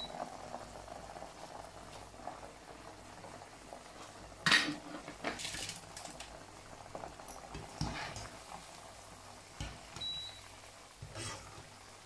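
Hot deep-frying oil bubbling in a wok, with metal utensils clinking loudly about four and a half seconds in and a few lighter knocks later.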